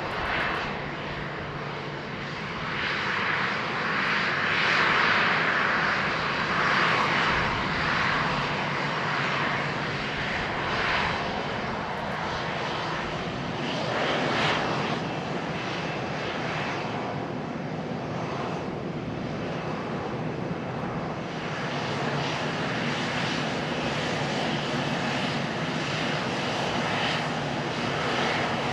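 Boeing 737-800's CFM56-7B turbofan engines running at low taxi thrust as the airliner taxis past: a steady engine hum under a rush of jet noise that swells a few seconds in and again about halfway through.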